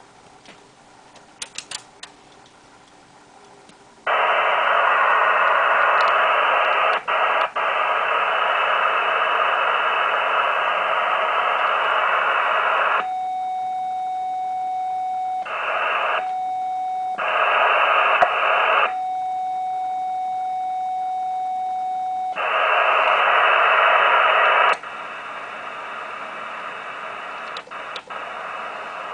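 Yaesu FT-1000MP Mark-V transceiver's speaker giving a loud rush of shortwave receiver hiss. Partway through, the hiss cuts out and a steady single-pitch CW sidetone sounds in several stretches while a carrier is keyed for the K-Loop-4 automatic loop tuner, with brief bursts of hiss between. Near the end the hiss returns, quieter.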